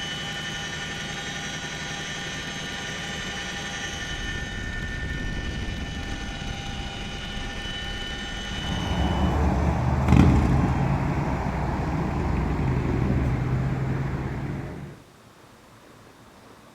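Engine noise: a steady run with a high, even whine over a low rumble, turning to a louder, rougher running sound about halfway through with one sharp knock, then cutting off suddenly near the end to faint wind noise.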